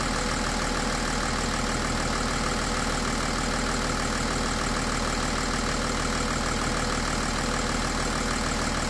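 BMW M57 inline-six turbodiesel idling steadily and evenly, running smoothly after its swirl flaps were removed and the intake manifold refitted.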